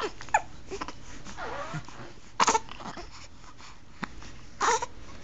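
Hiccups: two sharp, short hiccups about two seconds apart, the loudest sounds here, with soft falling whimpers before them.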